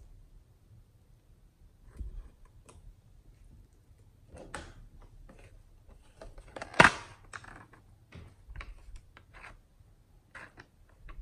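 Plastic makeup compacts handled, with scattered light clicks and scrapes. A sharp plastic snap a little over halfway through, as a shell-shaped compact is opened. Near the end, a plastic spatula scrapes eyeshadow out of the palette pans.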